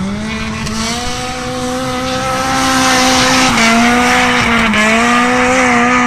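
Drift car's engine held at high revs, the pitch climbing at the start and then holding steady with two brief dips, over the screech of the rear tyres sliding sideways.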